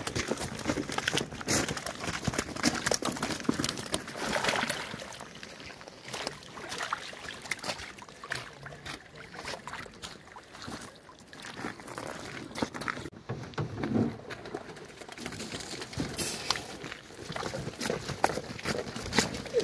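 Rustling, knocking noise as a landing net of live fish is carried and handled, with a few soft water sloshes when the net is lowered into the pond. The noise is made of many short irregular clicks and scuffs and is quieter in the middle.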